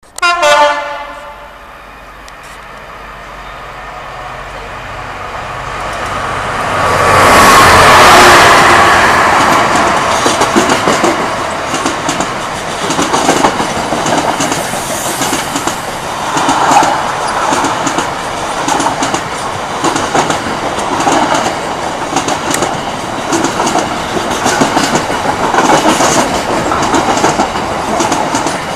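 A diesel train passing: a short horn blast at the very start, then the train's sound builds to its loudest about eight seconds in and settles into a steady rumble of passing cars with a regular clatter of wheels over rail joints.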